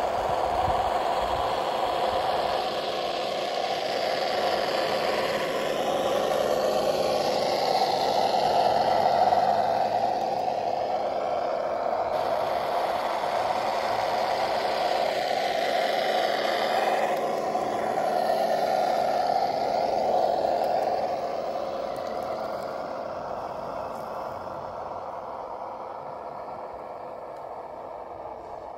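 Radio-controlled scale GAZ-66 truck driving over loose sand, its motor and drivetrain running with a steady whine, with rattling and scraping from the tyres and body. It fades over the last several seconds as the truck moves away.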